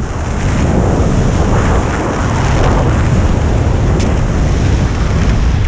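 Wind buffeting a head-mounted camera's microphone during a parachute canopy descent: a loud, steady rush of air, strongest in the deep low end.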